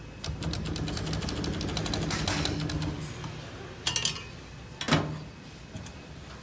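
Olivetti Lettera 32 portable typewriter mechanism: a rapid run of mechanical clicks for about three seconds, then a quick cluster of sharp strikes about four seconds in and one more a second later.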